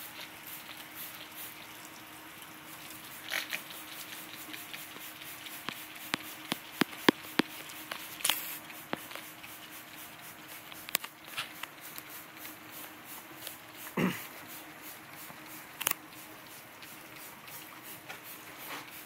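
Hand trigger spray bottle spritzing acid onto a steel panel: scattered clicks of the trigger with a few short sprays, over a faint steady hum.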